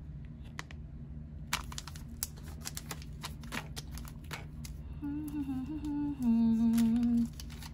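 A person humming a short tune with a few held notes for about two seconds near the end. Before it come a run of small clicks and taps, over a steady low background hum.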